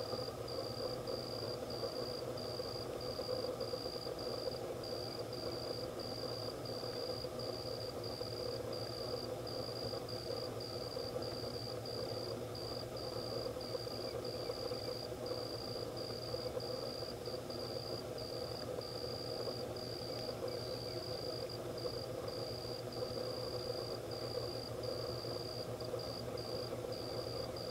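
Insects trilling: one steady high-pitched note broken by short, regular gaps a little more than once a second, over a low, steady background murmur.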